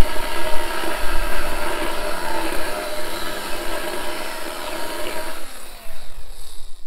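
RYOBI ONE+ 18V cordless chainsaw running steadily with a high motor whine, then winding down with falling pitch about five and a half seconds in and stopping.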